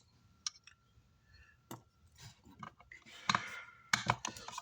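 Scattered light clicks and two short scraping rustles as small parts are handled and removed from an opened car amplifier.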